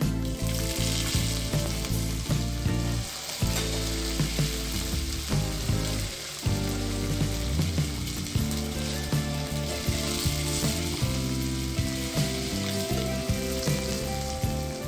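Curry leaves sizzling and spluttering in hot oil with the fenugreek seeds, chana dal and peanuts of a South Indian tempering, a steady frying hiss that swells about half a second in.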